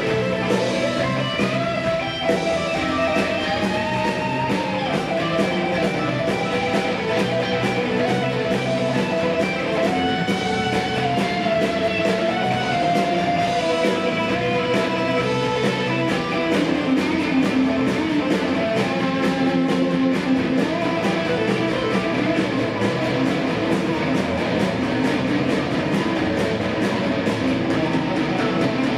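Live rock band playing. An electric guitar plays a lead line with bending notes over held chords and a steady drum beat.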